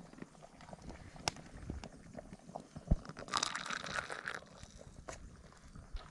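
Meat broth poured into a paper cup: a splashing, hissing pour lasting about a second, a little past halfway. Scattered light clicks and knocks around it, and one sharp thump just before the pour.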